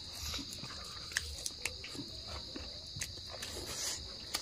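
Close-up eating sounds from roast chicken eaten by hand: chewing, lip smacks and scattered sharp clicks as meat is bitten and pulled. Behind them is a steady, high-pitched insect chorus.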